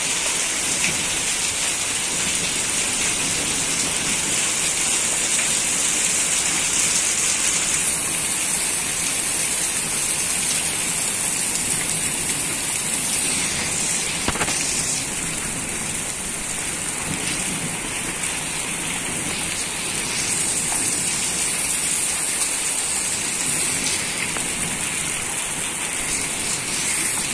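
Heavy rain falling steadily on a flooded street: an even hiss of drops splashing into standing water.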